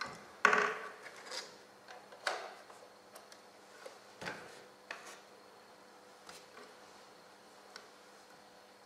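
Handling noise from gloved hands moving a digital multimeter and its test leads on a wooden bench: a series of knocks, clicks and rubs. The loudest comes about half a second in, with smaller ones around two and four seconds.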